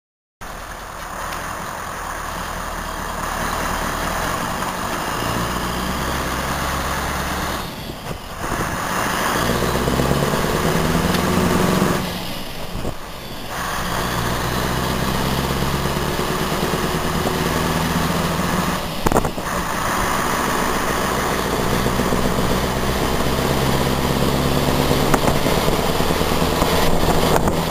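Scania R500's 15.6-litre V8 diesel engine heard from inside the cab while driving. Its pitch climbs in steps as it accelerates, with short drops in level at gear changes about 8 and 12 seconds in.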